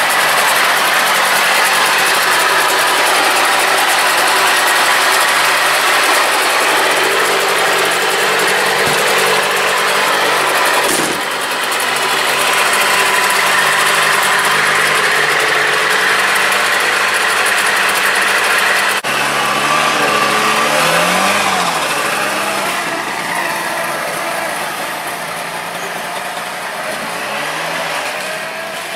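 Trabant 601's freshly overhauled two-cylinder two-stroke engine running steadily at idle. About two-thirds through, after a cut, the engine revs up and down as the car pulls away and fades.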